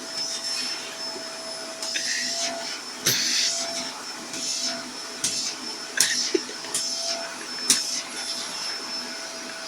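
Vacuum cleaner running steadily with a constant motor whine. Several brief, sharp clatters break in as it sucks things up.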